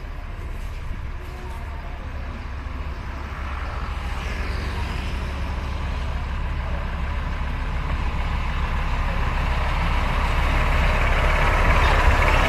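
Narrow-gauge DIEMA diesel locomotive and its carriages running on the rails, the engine rumble and wheel noise growing steadily louder as the train approaches.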